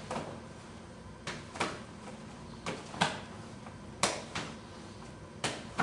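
Gloved punches slapped aside by open-hand parries: quick jab-cross pairs of sharp slaps, four pairs about a second and a half apart.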